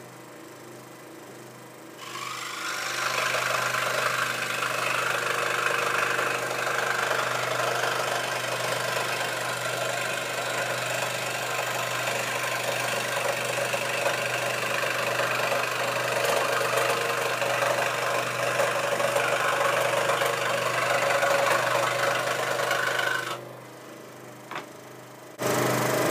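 Record Power SS16V 16-inch variable-speed scroll saw running steadily with a freshly fitted 15 TPI blade, cutting a straight line through wood. It starts about two seconds in and stops abruptly a few seconds before the end.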